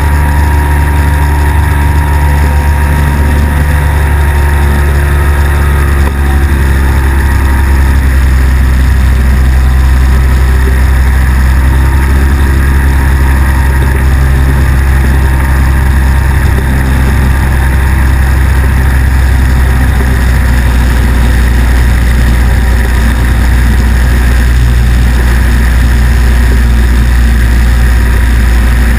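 Engine and pusher propeller of a weight-shift microlight trike running steadily in flight, with wind rushing over the microphone.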